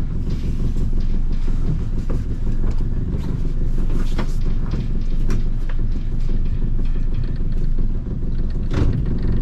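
Mariner 115 hp outboard engine idling steadily, with a few short knocks over it.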